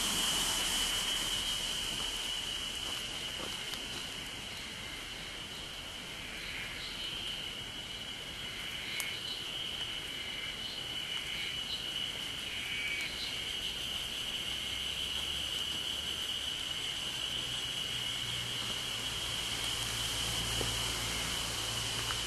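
Insect chorus: one steady, high, unbroken trill held throughout, with a soft hiss of drizzle underneath. Between about 6 and 13 seconds a run of short chirps joins in.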